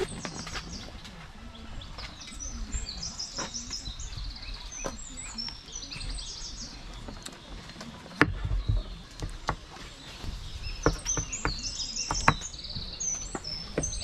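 Small birds chirping in repeated bursts, with a kitchen knife slicing a papaya on a wooden plank; from about eight seconds in, several sharp knocks as the blade hits the wood.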